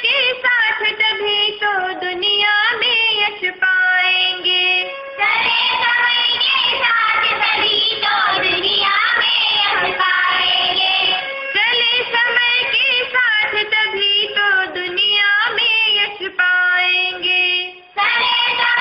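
A Hindi poem sung to a tune by a high voice, with musical accompaniment; the melody moves in phrases with some long held notes.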